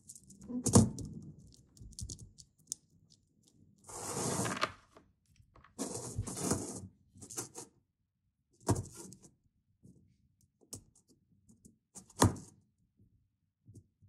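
Hands handling a split keyboard PCB fitted with low-profile Choc switches: scattered clicks, knocks and rustling with quiet gaps between, the loudest knock about a second in and another sharp one about twelve seconds in.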